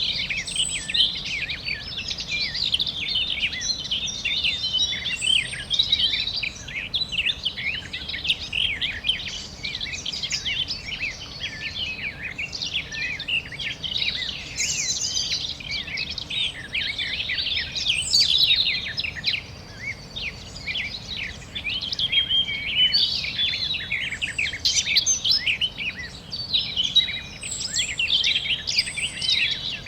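Many small birds chirping and trilling at once, a dense chorus of quick high notes with brief lulls.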